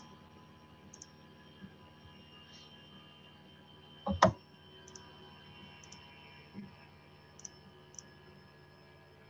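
Faint steady electrical hum with scattered light clicks and a louder double knock about four seconds in.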